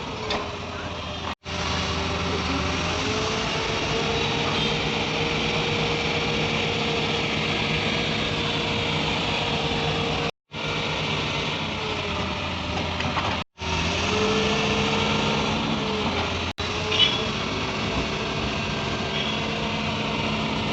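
Tata Hitachi excavator's diesel engine running steadily, its pitch rising and falling a little as it works. The sound cuts out briefly four times, and there is one short sharp sound about seventeen seconds in.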